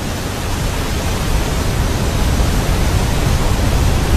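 Waterfall: a steady, loud rush of falling water that grows a little louder over the first second.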